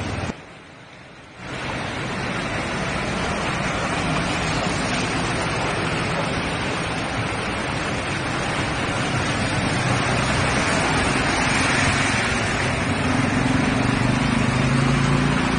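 Steady rushing noise of heavy rain and floodwater, with motorcycles and a car driving through the flooded street. The noise drops away briefly about a second in, and an engine hum comes up near the end.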